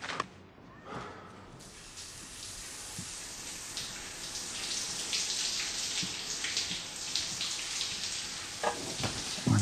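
Shower running: a steady hiss of spraying water, growing louder over the first two seconds and then holding, with a brief louder sound near the end.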